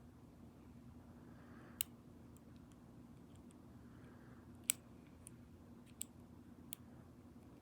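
Small, sharp clicks of a lock pick working the pins of a six-pin Master Lock dimple padlock under tension: about five irregular clicks with a few fainter ticks between them, the loudest near the middle.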